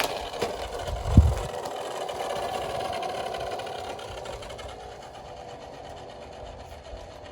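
Toy minicar rolling along a slope track: a steady whirring rattle of small wheels that slowly fades as the car runs on, with one low thump about a second in.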